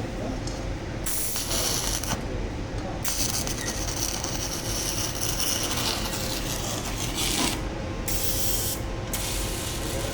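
Electric welding arc hissing and crackling, in bursts that start and stop abruptly as the arc is struck and broken, over a steady hum.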